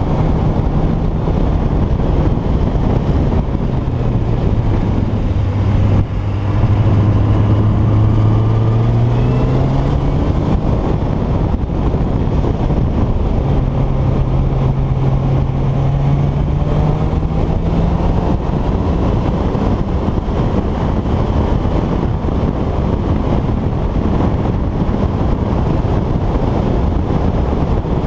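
Motor vehicle on the move: a loud, steady rush of wind and road noise, with the engine note climbing slowly twice as it accelerates, dropping in between as if shifting gear.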